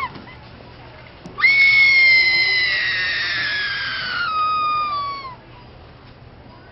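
A girl's long tantrum scream, starting about a second and a half in: high-pitched, sliding slowly down in pitch and fading out after about four seconds.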